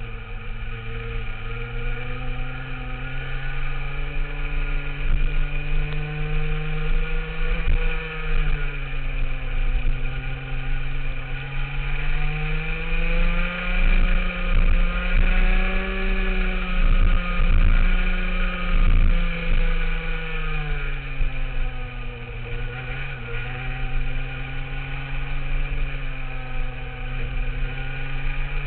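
Rotax Max 125 cc two-stroke kart engine heard onboard at racing speed. Its revs dip just after the start, climb and hold high through the middle, fall about two-thirds of the way through, then climb again near the end, with a few knocks in the middle.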